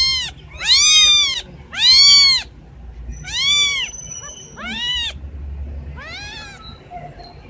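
A kitten meowing repeatedly: about six high-pitched meows roughly a second apart, each rising and then falling in pitch. The later meows are fainter.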